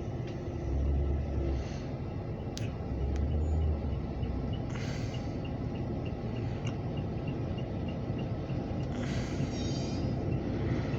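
Diesel locomotive running light with a steady low rumble, which swells twice in the first few seconds. A faint, even ticking, about three a second, runs through the second half.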